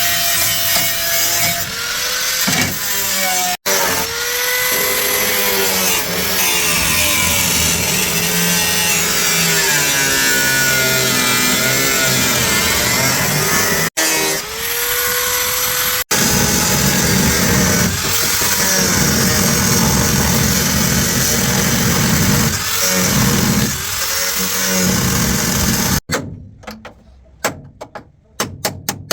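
A power tool running hard on car body metal, its pitch dipping and rising as it bites under load. It stops abruptly several times, and near the end gives way to a few sparse sharp taps.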